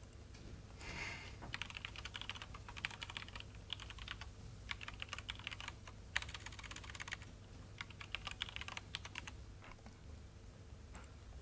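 Fast typing on a laptop keyboard, in several quick runs of keystrokes that stop near the end.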